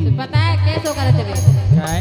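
Bundeli folk-song accompaniment: a voice singing over harmonium, with a hand drum beating steadily. About a second in, jingling percussion strokes join at roughly two a second.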